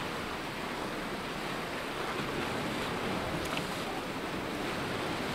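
Sea surf washing against shoreline rocks: a steady, even hiss of moving water.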